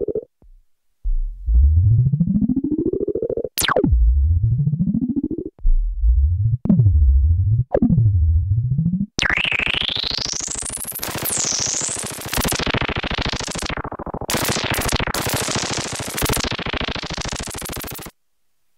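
Novation Circuit Tracks synth presets: low notes glide upward in pitch again and again, with a fast downward zap about three and a half seconds in. From about nine seconds a hissing, noisy synth sound sweeps up and down in pitch, then cuts off suddenly near the end.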